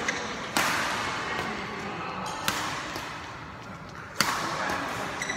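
Badminton rackets hitting a shuttlecock during a doubles rally: three sharp smacks a second and a half to two seconds apart. Each one rings on in the echo of a large hall.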